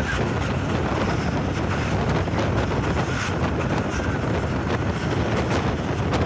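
Wind buffeting the microphone over the steady running noise of a moving passenger train, heard from an open coach window.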